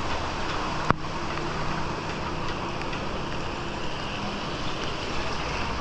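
Steady rushing noise of heavy rain and running floodwater, with one sharp tap about a second in.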